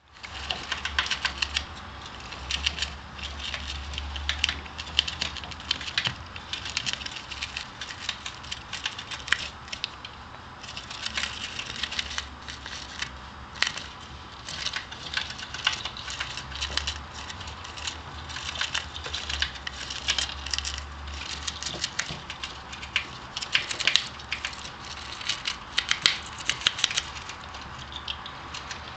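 Gerbil gnawing and tearing a cardboard tube: rapid, irregular crackling and snapping of cardboard being bitten and ripped apart.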